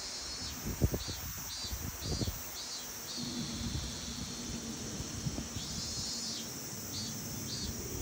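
Cicadas singing in the trees: a high buzzing call in short pulses about twice a second, running into one long buzz in the middle before the pulses return. A few low thumps sound in the first two seconds.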